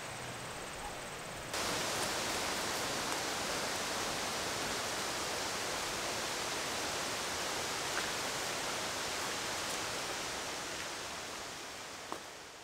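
Steady, even rushing outdoor noise with no distinct source, jumping louder about a second and a half in and fading away near the end, with a faint click shortly before it fades.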